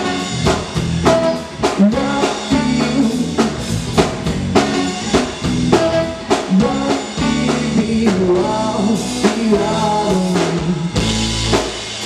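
Live band playing with drum kit, electric guitars and trombone, a steady drum beat under sustained horn and guitar notes.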